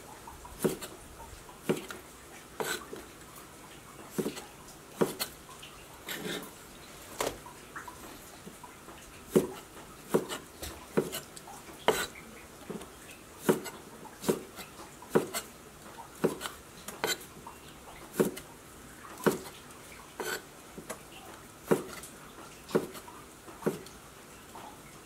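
Kitchen knife chopping spring bamboo shoots on a wooden chopping block: a sharp knock about once a second as the blade cuts through each shoot into the board.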